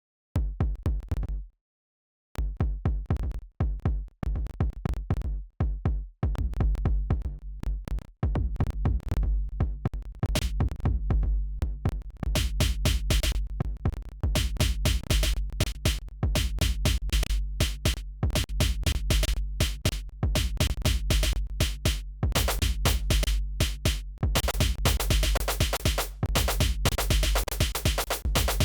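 Electronic music played back from a digital audio workstation: a fast drum-machine beat over deep bass and a held low tone. It stops briefly about two seconds in, restarts, and fills out with more layers about twelve seconds in and again near the end.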